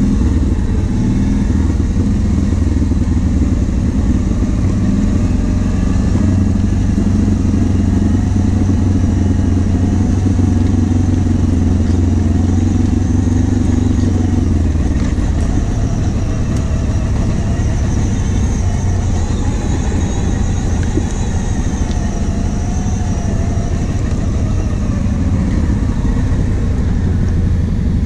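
Quad bike engine running steadily while riding a dirt trail. The heavy low engine sound eases off about halfway through.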